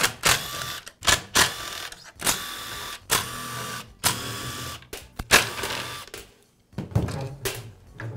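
Cordless drill/driver backing out the screws of a string trimmer engine's rear cover, its motor whining in repeated short bursts of under a second each.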